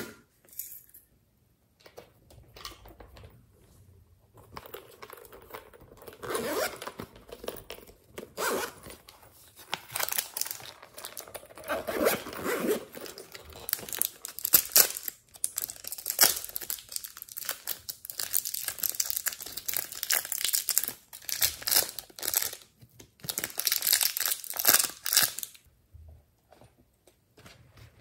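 Plastic wrapping on a block of purple modelling clay crinkling and tearing as it is opened, in irregular crackly bursts.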